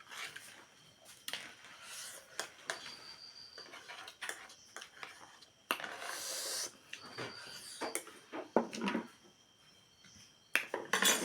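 Close-miked eating sounds: chewing and mouth noises with scattered sharp clicks, and a longer rushing mouth sound about six seconds in.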